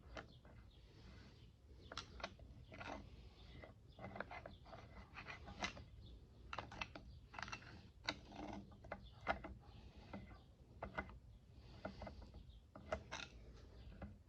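Faint, irregular small clicks, taps and light scrapes from handling the parts of a lathe's compound slide.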